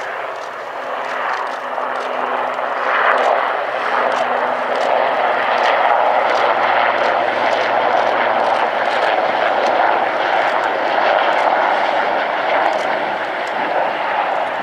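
Puma helicopter flying low past, its engines and rotor making a loud, steady rushing drone that builds over the first few seconds and then holds.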